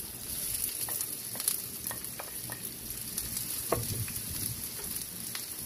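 Chopped onions sizzling in hot oil in a frying pan while a wooden spatula stirs them, scraping and knocking against the pan, with one sharper knock near the middle.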